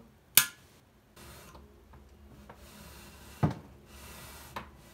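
Sharp metallic clicks of a small magnet and a steel caliper being touched to a loudspeaker's magnet assembly: one loud click about half a second in, another about three and a half seconds in, and a lighter one near the end, with faint rubbing in between.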